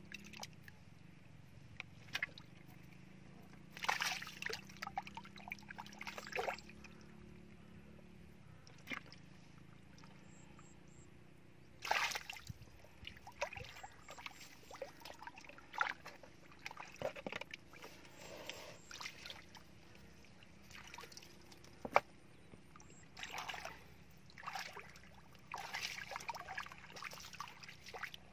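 Hands splashing and scooping in shallow muddy water while grubbing for fish in the mud, in irregular bursts of sloshing and dribbling, with one sharp click about two-thirds of the way through.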